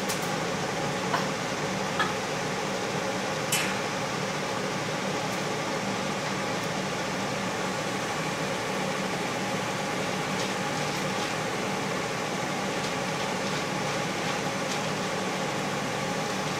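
Steady hum of an air conditioner running, with a few faint clicks in the first four seconds.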